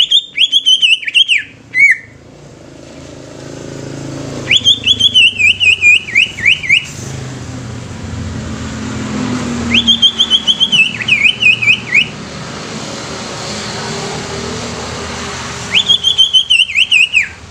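Caged cucak ijo (green leafbird) singing four loud whistled phrases about five seconds apart. Each phrase lasts about two seconds and opens with a sharp upward whistle, then breaks into a quick run of wavering notes that fall in pitch. A low rumble of passing motor traffic swells between the phrases.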